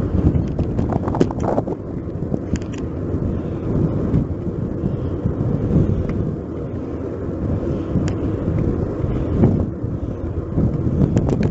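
Wind rushing over the microphone of a bicycle-mounted action camera while riding, with a steady road rumble and a few sharp clicks and rattles from the bike.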